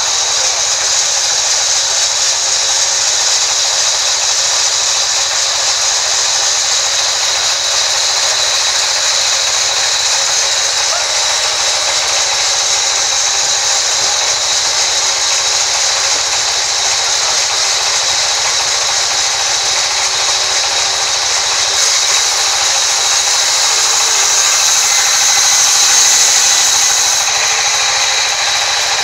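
Large sawmill band saw ripping lengthwise through a thick wooden slab: a loud, steady high-pitched whine and hiss of the blade in the wood, swelling a little near the end.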